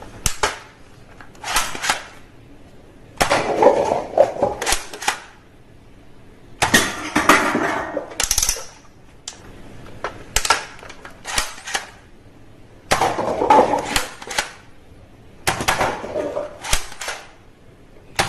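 Toy guns firing in short bursts of rapid plastic clacks and pops, one burst every two to three seconds.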